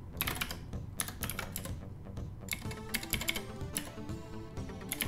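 Typing on a computer keyboard in short runs of keystrokes, over Amiga demo-scene background music.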